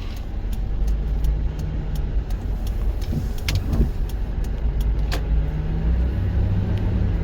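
Car driving: steady engine and road rumble, with the engine note rising and falling slightly and a few light ticks.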